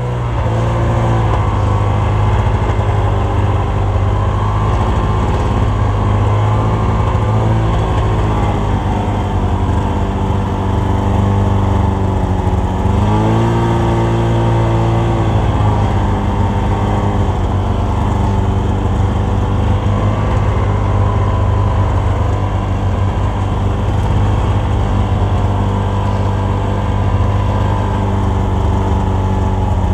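Snowmobile engine running steadily under way along a trail. Its pitch rises for a couple of seconds about halfway through as the throttle opens, then settles back.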